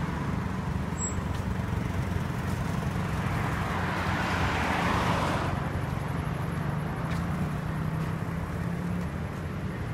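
City street traffic: a steady low engine hum throughout, and a car passing close by about halfway through, its tyre and engine noise swelling and then fading.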